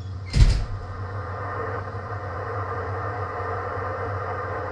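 Hiss and static from an HF ham transceiver's speaker, tuned to an LSB voice channel, held in the narrow band of a single-sideband receiver and cutting in with a sudden thump about half a second in. A steady low mains hum runs underneath.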